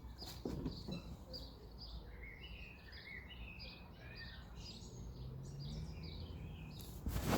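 Small birds chirping repeatedly over a steady low background rumble, with a brief louder noise burst near the end.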